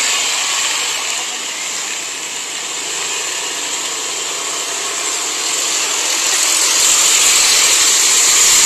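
Road traffic passing: a steady hiss of engines and tyres that grows louder over the last few seconds as a vehicle goes by.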